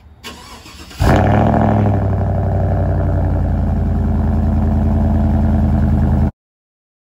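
Pickup truck engine cold-started: a brief crank, then the engine catches about a second in with a short flare and settles into a steady idle at the exhaust. The sound cuts off abruptly near the end.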